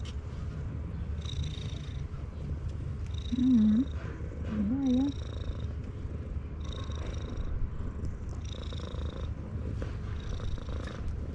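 Tabby cat purring loudly, a low continuous rumble. Twice, about three and a half and four and a half seconds in, a person briefly hums a wavering "mm-hmm".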